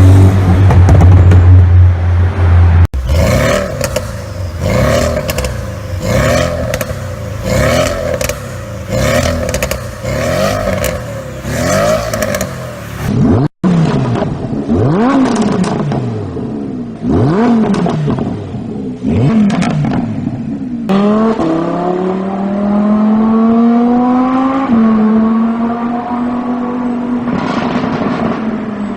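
Performance car exhausts in several short clips: a steady low drone, then a run of repeated throttle blips with sharp crackles and pops on each lift-off, then more revs rising and falling. Near the end a car accelerates with its engine pitch climbing steadily through one gear change.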